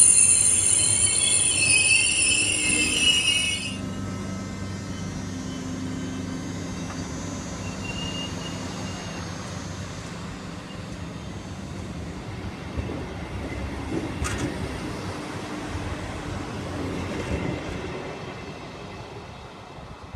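A passing train's wheels squeal loudly with several high-pitched tones, then stop sharply about four seconds in. The train's quieter running rumble carries on and fades away near the end.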